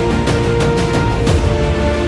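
Background music with a steady beat and held synth tones.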